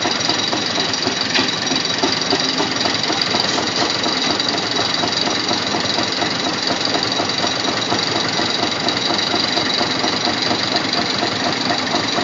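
Tractor engines running steadily, with a fast, even pulse.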